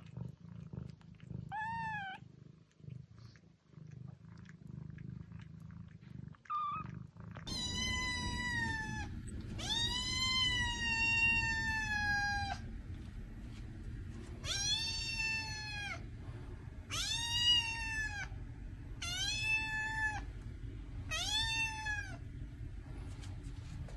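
Newborn kittens giving a couple of short, faint, high mews, then a young black-and-white kitten meowing insistently: six long drawn-out meows, each rising and falling in pitch, a couple of seconds apart.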